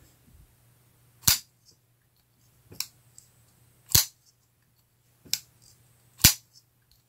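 Artisan Cutlery Ahab liner-lock folding knife being opened and closed by hand: the blade snaps open against its stop and shuts with sharp metallic clicks, five of them about a second or so apart.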